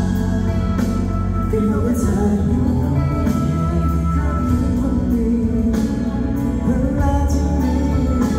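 Men singing a pop song live into microphones over loud amplified backing music with a heavy bass line.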